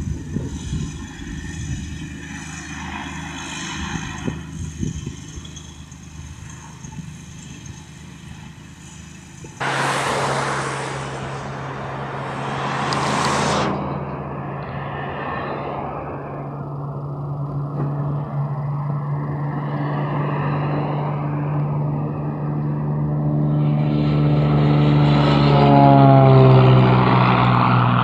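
Single-engine Mooney light aircraft's piston engine and propeller at takeoff power: a steady droning hum that grows louder as the plane climbs out toward and past the listener, its pitch sliding down as it goes by near the end. For the first third there is only a low uneven rumble. About a third of the way in a loud hiss starts suddenly and lasts several seconds.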